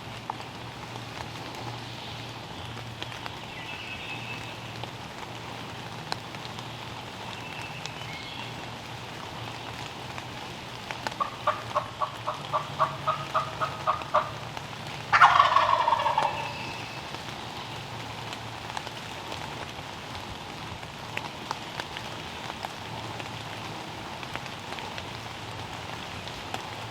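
Wild turkey gobbler gobbling once, loud, about halfway through, right after a run of about a dozen quick turkey yelps at about four a second. Faint chirps of small birds and a light patter of rain throughout.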